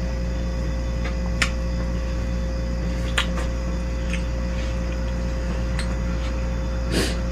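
A few faint, sparse clicks of eating (a spoon tapping a bowl, mouth sounds) over a steady low electrical hum.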